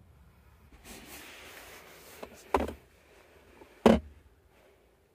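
Two short knocks from the rear-seat interior fittings being handled, about a second and a half apart, the second louder, after a brief rustle.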